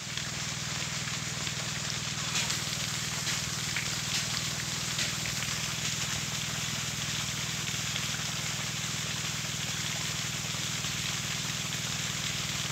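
Steady outdoor noise: a constant low hum under an even hiss, with a few faint clicks in the first few seconds.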